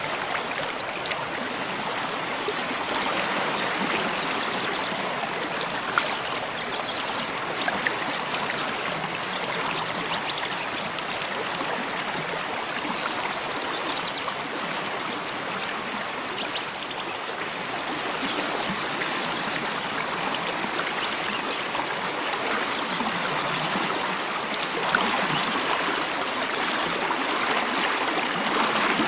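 Mountain stream flowing over rocks: a steady, even rush and babble of water. A few brief high bird chirps sound over it, around a quarter and half way through.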